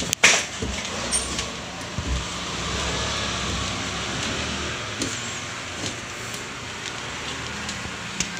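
Footsteps going down a wooden staircase, with one sharp knock just after the start, over a steady rushing background noise that swells slightly a few seconds in.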